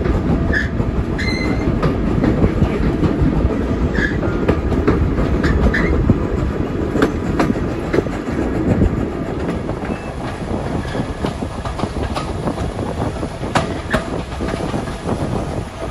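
Heritage railway coaches running along the track, heard from an open coach window: a steady rumble with irregular clicks of the wheels on the rails, a little quieter in the second half.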